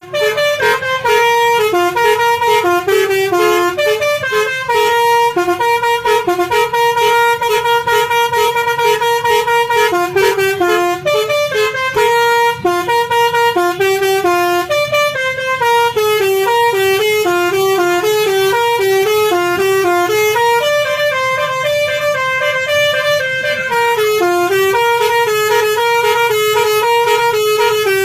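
A bus's basuri telolet musical horn playing a long, loud tune of short stepped notes, several pitches sounding together, without a pause.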